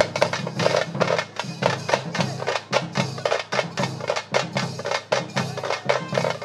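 A troupe of parai frame drums beaten with sticks, playing a fast, driving rhythm of sharp, even strokes, several a second.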